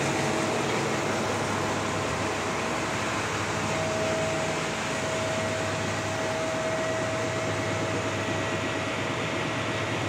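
Large band sawmill running steadily, its motor and blade making a constant machine noise with a thin, steady whine.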